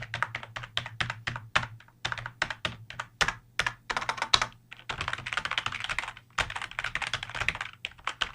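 Computer keyboard being typed on: a run of quick, uneven keystroke clicks that turns into a dense burst of fast typing from about five seconds in.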